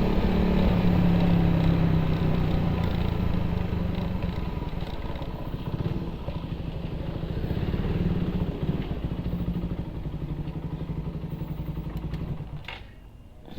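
Suzuki Raider 150 motorcycle's single-cylinder engine running through an open exhaust pipe, steady at first and then easing off with a quick, even pulsing from the exhaust. The sound falls away sharply near the end.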